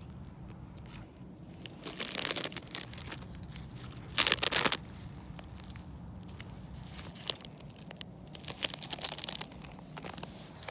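Irregular crunching and crinkling rustles in short bursts, the loudest a brief burst about four seconds in, with another cluster near the end.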